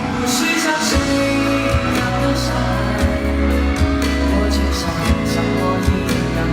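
Pop song with a steady beat and sung vocals.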